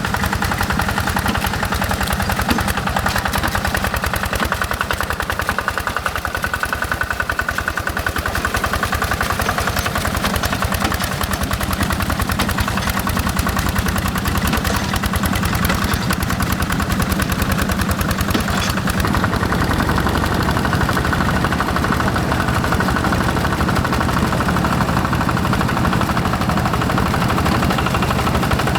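Quick G1000 hand tractor's single-cylinder Yanmar diesel engine running steadily with a rapid, even knocking beat; about two-thirds of the way in its low rumble grows heavier.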